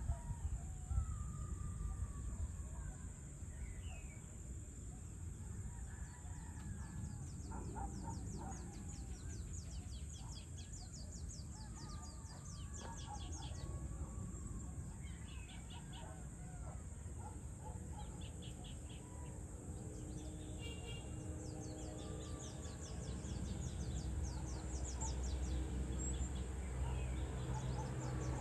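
Evening outdoor ambience: birds calling and chirping, with repeated rapid high trills and scattered sliding calls, over a steady low rumble that grows louder near the end.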